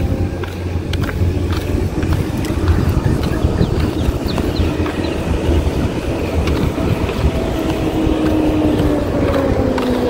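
Road traffic: a motor vehicle passes close by over a steady low rumble, its engine tone falling in pitch in the second half.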